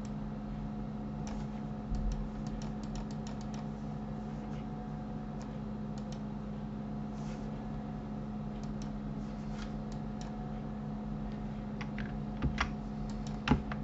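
Scattered clicks of a computer keyboard and mouse, in small irregular clusters, over a steady low electrical hum.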